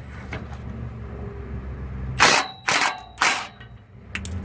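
Three loud, sharp metallic bursts about half a second apart from tool work on a trailer wheel's tight locking lug nuts, over a steady low hum.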